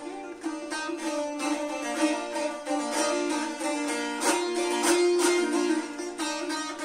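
Azerbaijani saz played solo: quick plucked notes of an aşıq melody over a steady ringing drone from the open strings, with a run of hard strums near the middle.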